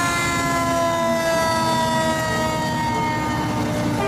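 Fire truck siren sounding as the ladder truck drives past: one long tone sliding slowly down in pitch, over the rumble of the truck's engine.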